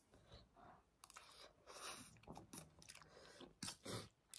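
Faint close-up chewing of noodles, with a few short soft clicks.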